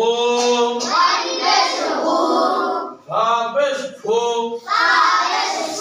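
A class of young boys chanting together in unison in a sing-song recitation, a Qur'an reading drill, in phrases broken by brief dips about three and four seconds in.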